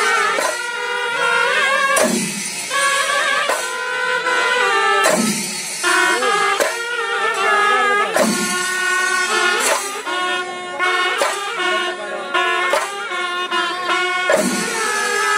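Kerala chenda melam: a row of chenda drums beaten with sticks in a dense, continuous rhythm, with a kuzhal double-reed pipe playing held, wavering notes over the drumming.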